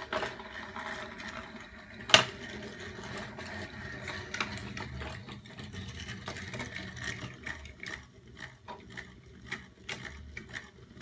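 Toy train engines and wooden track pieces clicking and knocking against a wooden table as they are handled, with scattered irregular taps and one sharp, loud knock about two seconds in.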